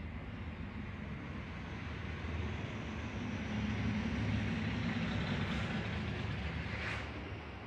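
Low rumble of passing road traffic, swelling over a few seconds, with a brief hiss about seven seconds in before it fades back.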